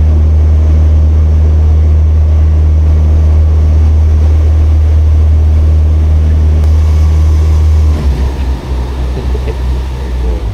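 Boat engine running with a loud, steady deep hum that drops away abruptly about eight seconds in, leaving a lower, uneven rumble.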